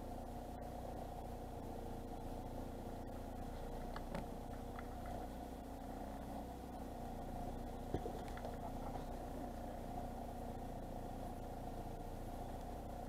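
A boat's engine running steadily, a constant hum, with a light knock about eight seconds in.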